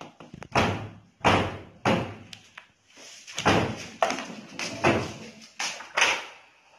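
A string of thuds and knocks, about nine in all, roughly one every half second to second, as a person moves about the room and handles things at a door.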